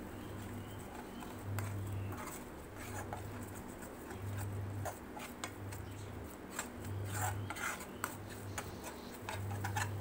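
A spatula scrapes and taps around a nonstick frying pan as eggs are stirred and scrambled while they fry. Under it, a low hum switches on and off about once a second.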